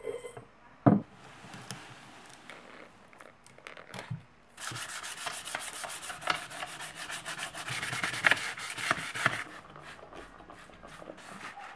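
A hand rubbing briskly back and forth along a bicycle fork blade: a scratchy hiss of quick strokes that runs for about five seconds in the middle, with a few scattered strokes near the end. A single sharp knock about a second in.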